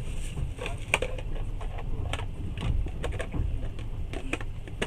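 Passenger train running, a steady low rumble heard from inside the carriage, with a run of irregular sharp clicks and taps close by.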